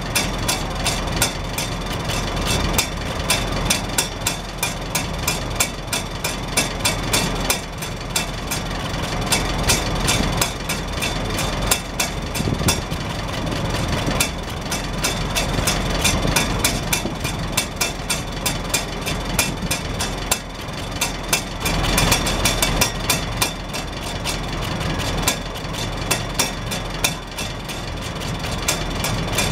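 Farmall Super H tractor's four-cylinder gasoline engine idling steadily, heard at the exhaust stack. The hinged rain-cap flapper on top of the chrome stack taps and clicks over and over, several times a second.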